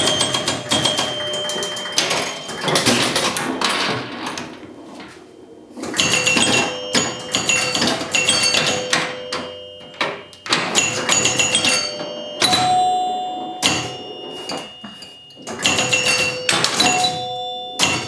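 1976 Gottlieb Surf Champ electromechanical pinball machine in play: its score chimes ring over rapid clattering clicks from the machine's switches, relays and solenoids. This comes in several bursts with short lulls between them.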